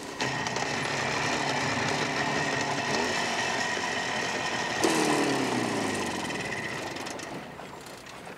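A motor vehicle's engine running. About five seconds in its note jumps up, then falls steadily and fades away.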